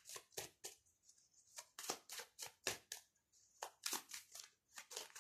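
A tarot deck being shuffled by hand, giving a faint run of short, irregular card clicks and snaps about two or three a second.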